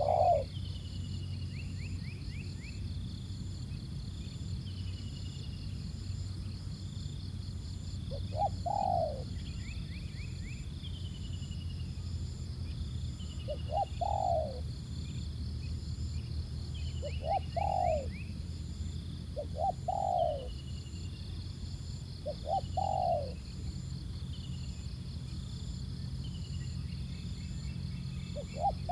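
Spotted doves cooing: short phrases of a few quick notes ending in a longer falling coo, repeated every few seconds. This is a decoy dove and a wild male trading territorial calls. Fainter high chirps from small birds and a steady high insect buzz run underneath.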